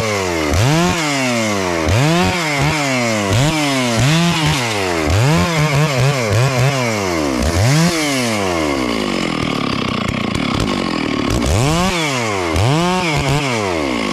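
Two-stroke chainsaw revving up and down as its chain is pushed into coffee-tree roots and dirt, the engine pitch rising and falling about once a second and faster in the middle. It drops back to a steady lower run for a few seconds, then revs twice more near the end.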